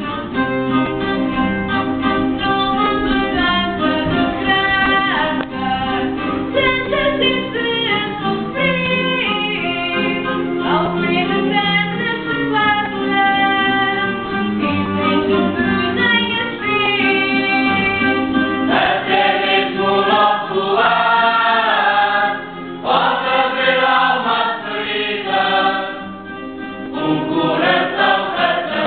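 A choir of men and women singing, with plucked string instruments accompanying. The voices grow louder and fuller about two-thirds of the way through, in phrases broken by short pauses.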